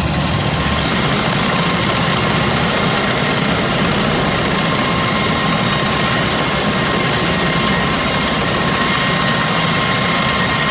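Bell Boeing MV-22 Osprey tiltrotors running on the ground with their proprotors turning in helicopter mode, their turboshaft engines at a steady idle. The sound is a loud, steady turbine whine with several high steady tones over low engine and rotor noise.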